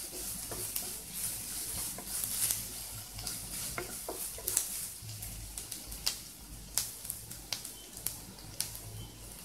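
Chopped onion and capsicum sizzling in butter in a non-stick kadai, with a wooden spatula scraping and clicking against the pan as it is stirred. A steady hiss runs under scattered sharp ticks.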